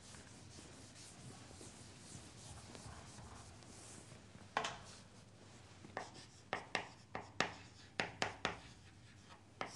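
Chalk on a blackboard: a faint scratchy rubbing, then from about halfway a run of short sharp taps as the chalk strikes the board.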